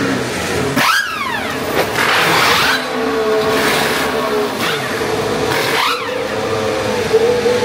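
Formula 1 cars' turbocharged V6 hybrid engines going by along the pit lane, the pitch falling as each passes, about a second in and again near six seconds. A steady engine note runs between the passes, with a rush of noise about two seconds in.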